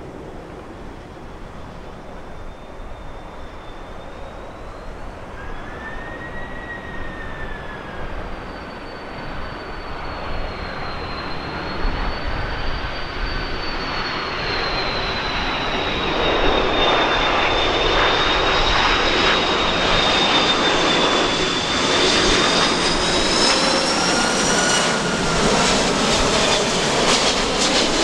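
Airbus A330 jet airliner coming in to land, its turbofan engines giving a whine of several high tones that drift slowly in pitch over a broad rushing noise. The sound grows steadily louder, and is at its loudest over the last dozen seconds.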